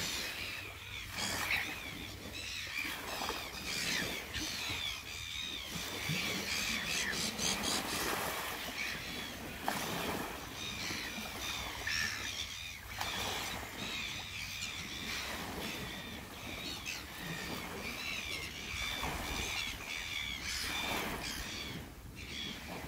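A flock of gulls squabbling, with many short squawking calls overlapping all the way through, over small waves washing onto the shore.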